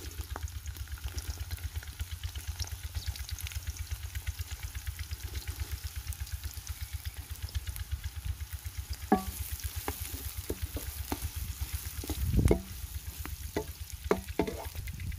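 Julienned carrots sizzling in hot ghee in a large aluminium karahi. From about nine seconds in, a wooden spatula scrapes and knocks against the pan, with one heavier knock near twelve seconds, over a low, fast throbbing that runs all through.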